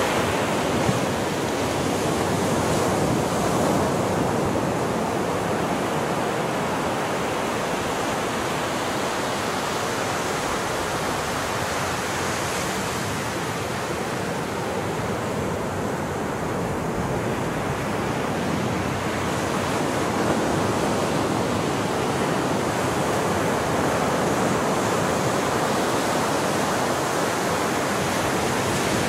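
Sea surf breaking and washing up on a sandy beach: a steady rushing noise that swells and eases only slowly.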